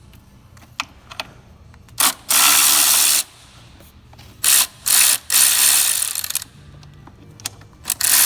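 Ratchet wrench ratcheting in repeated bursts of rapid clicking, with a few single clicks between, as bolts in the engine bay of a Jeep Wrangler 3.6 Pentastar are worked loose.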